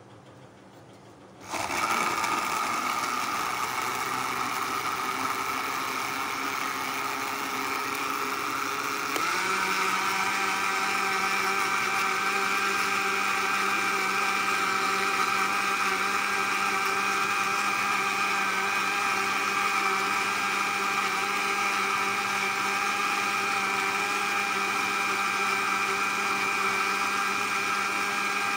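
National electric countertop blender switched on about a second and a half in, its motor running steadily with a whine as it blends a milkshake of milk, bananas and Oreo biscuits. About nine seconds in the whine steps up in pitch and then holds steady.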